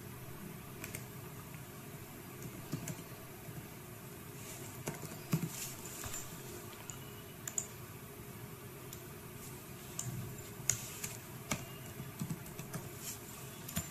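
Computer keyboard typing: irregular, scattered keystrokes with short pauses between them.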